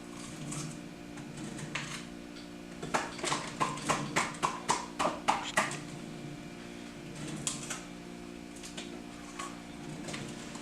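A run of about a dozen quick knocks on a cutting board, roughly four a second, a few seconds in, as bell peppers are worked over, with a few lighter clicks around it and a steady low hum underneath.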